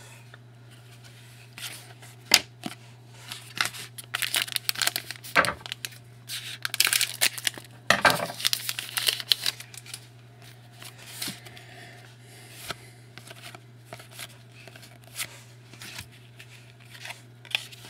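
A trading card pack being torn open by hand and its cards handled, with irregular bursts of wrapper tearing and crinkling, busiest in the first half.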